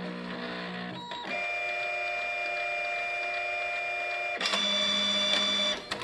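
Epson Stylus Color 640 inkjet printer's mechanism running, its motors whining at steady pitches. The pitch changes about a second in, then again, louder, a little past four seconds, and the sound stops just before the end.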